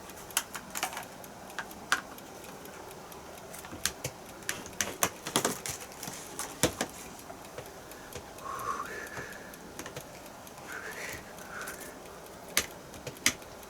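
Irregular light clicks and clacks of plastic steamer baskets and utensils being handled as fish is put into a steamer basket.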